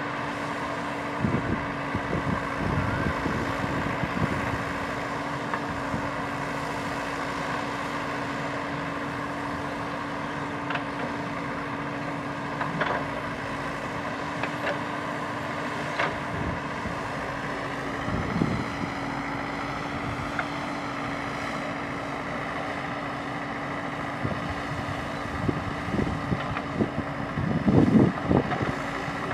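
JCB 3DX backhoe loader's diesel engine running steadily under hydraulic load as the backhoe digs, lifts and swings. A few knocks as the bucket bites into the pile, and a louder cluster of thuds near the end as the load is dumped into the tractor trolley.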